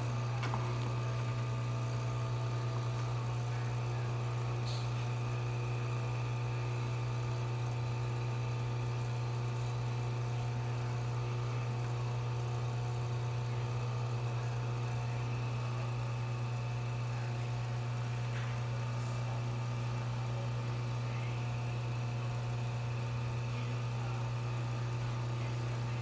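Jura Impressa S9 automatic espresso machine's pump humming steadily while it brews an espresso shot, coffee flowing normally now that the clogged brew group has been cleaned and fitted with a new gasket.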